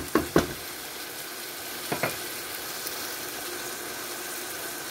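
Chicken in tomato masala sauce sizzling steadily in a frying pan. A wooden spatula stirs and knocks against the pan three times at the start, and once more about two seconds in.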